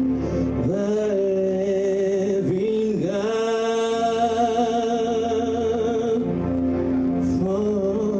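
Worship music: a singer holding long, wavering notes over sustained instrumental chords.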